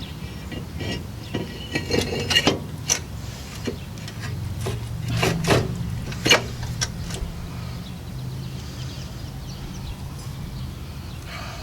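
Scattered metallic clicks and clinks of rear brake parts and hand tools being handled during a brake pad change, over a steady low hum.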